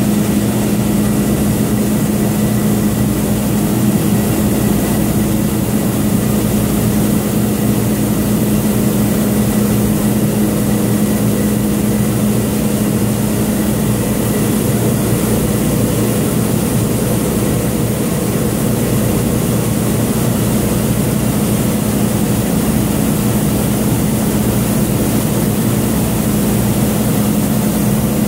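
Kidder 886 Centraflex central-impression flexographic printing press running, film web moving through its rollers: a loud, steady mechanical drone with a strong low hum under a wide, even hiss.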